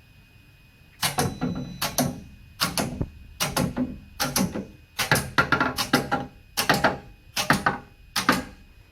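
Solder paste thawing machine's ten compartment covers opening one after another, a sharp mechanical clack for each, about one every 0.8 seconds. A faint steady high tone runs underneath.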